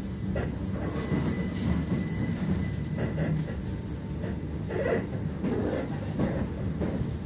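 Passenger train heard from inside the carriage as it rolls along a platform: a steady low rumble of wheels and running gear with scattered knocks and clatter, and a faint high whine for the first three seconds.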